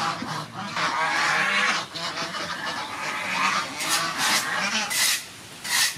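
Geese honking repeatedly, with several loud calls through the second half.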